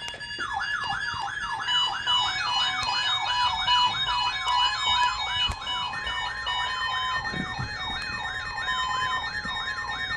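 Several weather radio receivers alarming at once for the NOAA Weather Radio weekly test: a siren sweeping up and down about three times a second over the steady weather radio warning alarm tone, with other beeping tones. Another steady, higher tone joins about six seconds in.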